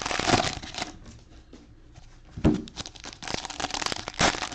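Trading-card pack wrappers crinkling and tearing as packs are opened and cards handled, with a single thump about halfway through.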